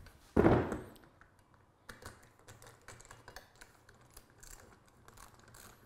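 A thump about half a second in as the upside-down drift trike is set down on the table, then faint, irregular light clicking of a screwdriver backing out the small screws of the trike's plastic rear fender.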